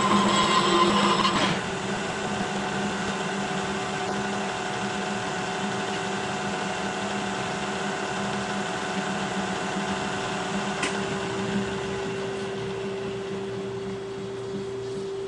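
Kearney & Trecker horizontal milling machine running its slotting cutter through a Delrin shaft, sped up eightfold, for about the first second and a half; it then cuts off to a steady hum with one steady tone.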